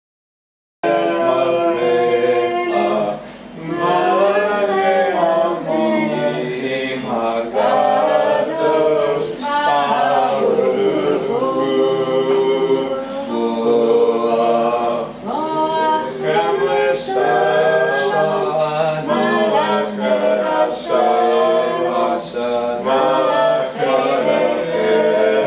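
A small family group, men and a woman, singing a Friday-night Shabbat table song together with no instruments, starting about a second in.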